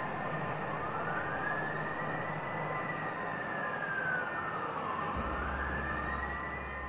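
Emergency siren wailing: one slow rise and fall, then rising again, over a steady rushing noise. A low hum comes in about five seconds in.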